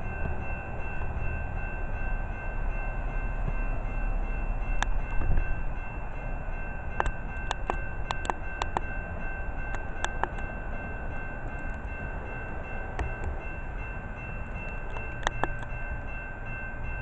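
Railroad crossing warning bell ringing continuously as a steady high two-tone ring, with the gates down. Underneath is a constant low rumble, and a few sharp clicks come around the middle and again near the end.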